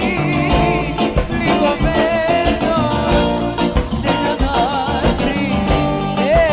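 Music: a song with a singer's voice, its held notes wavering, over guitar and a steady drum beat.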